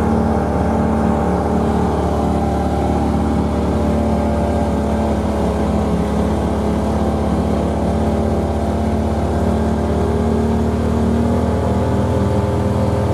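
Tracked side-by-side's engine running at a steady speed under load as the machine drives through deep snow, heard from inside the cab.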